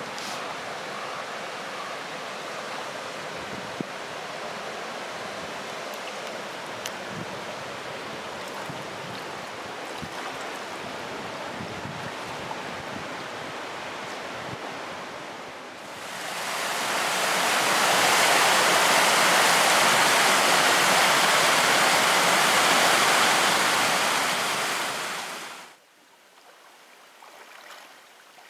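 Rushing river water, a steady even wash. About halfway through it swells much louder for several seconds, then drops away sharply near the end.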